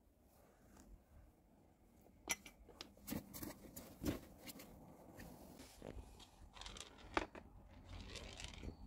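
Sticks of chalk being batted about by a cat, tapping and clicking on a wooden floor: scattered light taps, about one a second, after a quiet first two seconds.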